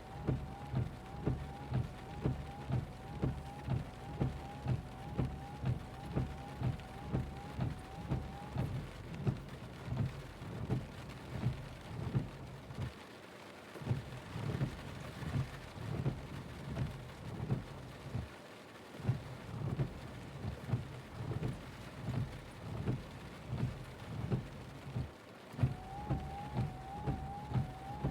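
Car windshield wipers sweeping back and forth over a wet windshield in a steady rhythm, with rain pattering on the car. A faint wavering whine runs under the strokes for the first third and returns near the end.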